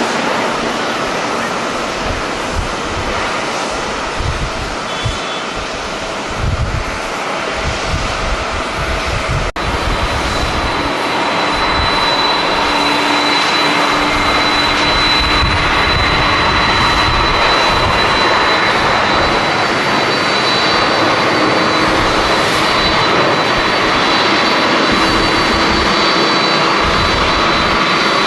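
Jet airliner engines running, a steady rush that grows louder about a third of the way in, with a thin high whine over it. Wind buffets the microphone with a gusty low rumble, strongest in the first part.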